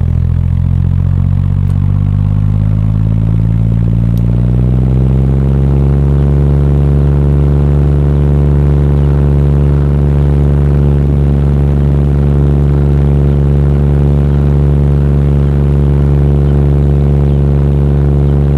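Electric fan running with its air on a microphone, making a drone like a small propeller plane. The pitch rises over the first five seconds or so as the fan comes up to speed, then holds steady.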